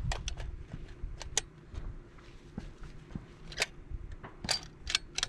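A series of irregular sharp metallic clicks and clacks from cartridges being loaded and the rifle being handled. A low wind rumble sits on the microphone underneath.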